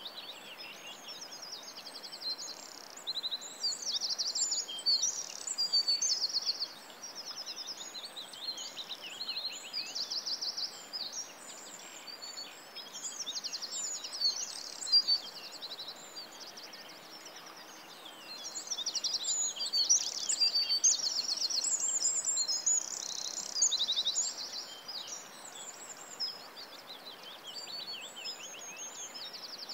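Recorded songbird chorus: several birds singing overlapping rapid trills and chirps over a soft steady background hiss. It is busiest and loudest around four to six seconds in and again from about nineteen to twenty-four seconds.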